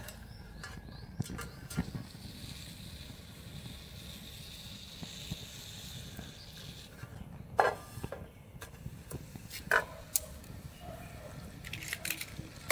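Plastic toy airplanes melting and burning in a frying pan under a metal ball heated to about 1000 degrees: a hiss for several seconds, then a few sharp pops and clacks over the steady low rumble of the flames.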